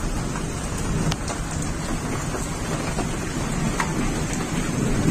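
Heavy rain falling steadily, with a few sharp drip clicks now and then.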